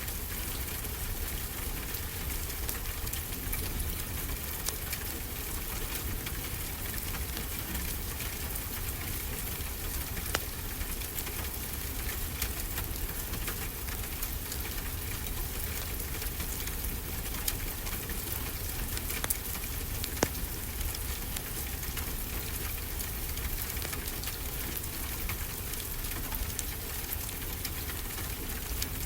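Steady rain falling, with a wood fire crackling in a fireplace: scattered sharp pops and snaps, a few louder ones, over the even hiss.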